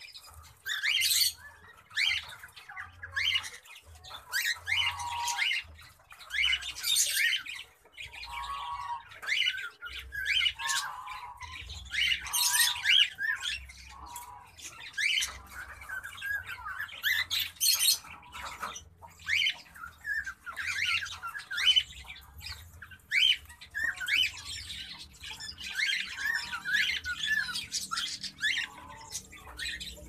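Cockatiels giving harsh, rasping squawks in quick runs, call after call.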